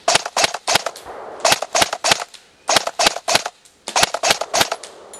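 Code-8 H4A1 airsoft professional training weapon (PTW) firing on a 14.8 V battery: four quick strings of about five sharp shots each, roughly five shots a second, with short pauses between the strings.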